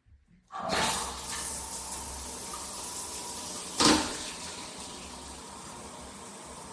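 Water spray from a handheld shower head starting about half a second in as the stop/pause button is released, then running as a steady hiss, with one brief louder surge about four seconds in.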